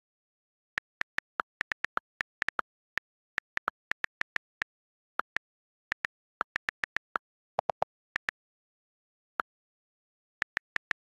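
iPad on-screen keyboard key clicks as a sentence is typed: an uneven run of short, sharp clicks, a few a second, with dead silence between them. One lower click about two thirds of the way through.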